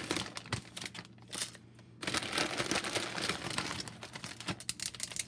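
Clear plastic bag of dry wide egg noodles crinkling and crackling as handfuls are pulled out, quieter for a moment about a second in.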